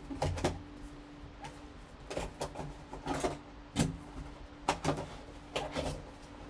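Cardboard trading-card box being opened by hand: the lid flap and inner tray scrape and tap in a string of short knocks and rustles. A faint steady hum lies underneath.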